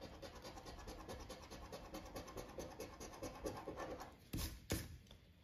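Scratch-card coating being scratched off a lottery ticket in quick, even scraping strokes. Two short, louder strokes come about four seconds in.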